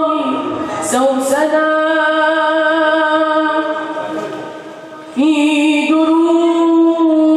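A boy's solo voice singing a nasheed into a microphone, holding long, steady notes. The phrase fades out between four and five seconds in, and a new held note starts at about five seconds.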